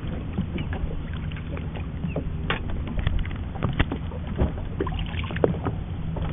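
Boat motor idling with a steady low hum. Scattered short splashes and knocks come as a catfish is pulled from the water at the boat's side.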